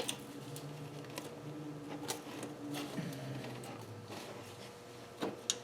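Faint, scattered clicks and taps of small metal parts being handled, such as piston rings and feeler gauges, over a steady low hum. Two of the clicks come close together near the end.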